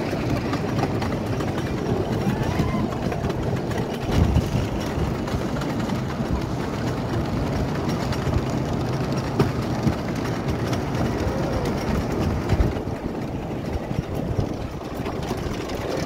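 Wooden roller coaster train climbing its lift hill: a steady mechanical clatter full of small clicks, with a heavier knock about four seconds in and another a little past twelve seconds.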